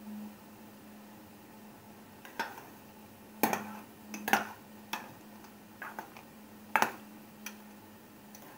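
Metal spoon knocking and clinking against the side of an enamel pot while stirring apricot jam: about seven sharp knocks starting about two seconds in, over a faint steady low hum.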